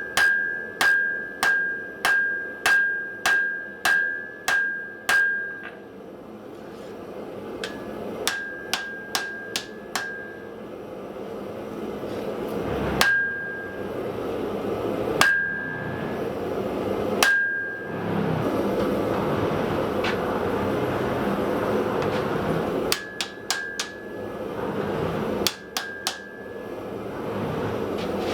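Hammer blows on hot steel at an anvil, each with a ringing anvil tone: about nine evenly spaced blows in the first six seconds, then lighter taps, single blows spaced a couple of seconds apart, and a few more near the end. A steady rushing noise swells in the middle while the blows pause.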